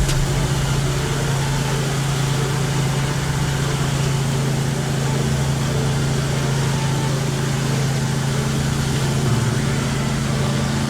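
Engine of a gas-powered pressure washer running steadily: a constant low hum under an even hiss.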